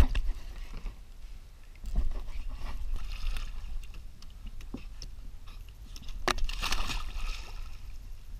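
Lake water splashing and sloshing as two dogs leave a kayak and swim off. About six seconds in there is a sharp knock followed by about a second of heavier splashing.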